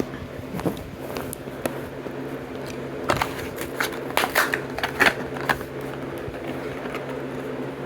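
A Hot Wheels blister pack being torn open: plastic blister and cardboard card crackling and crinkling in a string of sharp clicks, thickest in the middle stretch.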